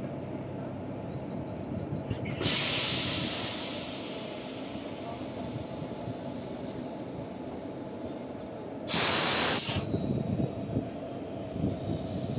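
Compressed air hissing loudly twice from the train's air-brake hose couplings as they are worked on: once about two seconds in, fading away over a second or so, and again near nine seconds, about a second long and stopping abruptly. A steady low hum from the standing electric locomotive runs underneath.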